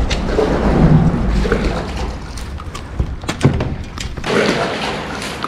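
A small bass being swung out of the water into a bass boat, with splashing and rumbling handling noise at first, then sharp knocks a few seconds in as the fish lands and flops on the deck.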